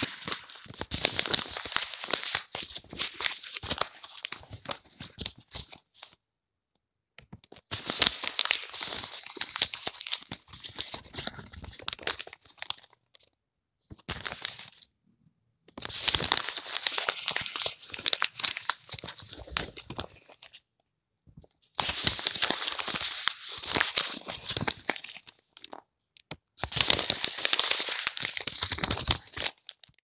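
Paper crumpled by hand, a dense crackling of creasing sheets, in five separate bursts of a few seconds each with silent gaps between.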